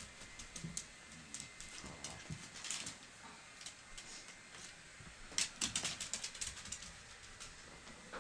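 An Australian Shepherd's claws clicking and scuffling on a hardwood floor as it plays, in scattered light taps with a quick run of clicks about five and a half seconds in.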